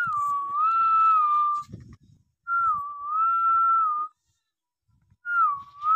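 A person whistling the same short wavering phrase three times, each lasting about a second and a half, with short pauses between.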